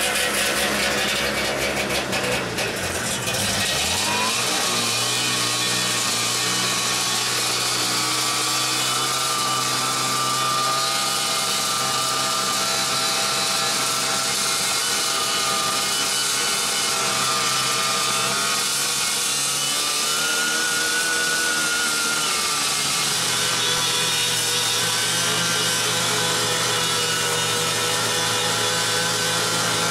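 Taiga Varyag 500 snowmobile's two-stroke engine running under way. The note drops and picks up again about three seconds in, then climbs and settles around twenty seconds in as the throttle changes.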